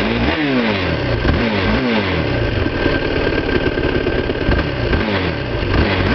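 2008 Yamaha YFZ450's single-cylinder four-stroke engine blipped with the thumb throttle: it revs up and drops back several times in quick succession over the first two seconds, then settles to a steady idle.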